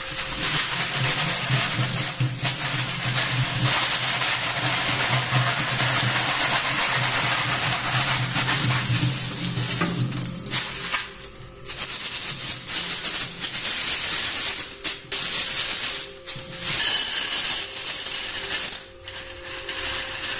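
Tap water running onto a white plastic colander of plastic keycaps in a stainless steel sink for about the first ten seconds. After that, wet plastic keycaps rattle and clatter in the colander in stop-start bursts as they are handled and tipped out.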